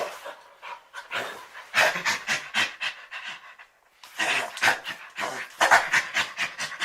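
Nigeria-Cameroon chimpanzee giving rapid, breathy panting calls at about four a second, in two bouts with a short pause between them.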